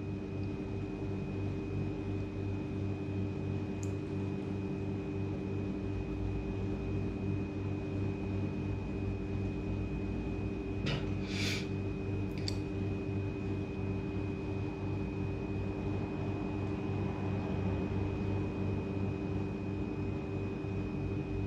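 Steady hum of a spinning ceiling fan, with a couple of short breathy sniffs about eleven and twelve seconds in while a swab is held in the nose.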